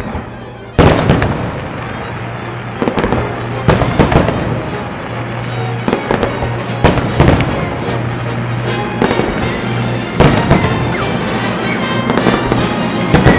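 Aerial fireworks going off: a loud burst about a second in, then a run of sharp bangs every second or so with crackling in between.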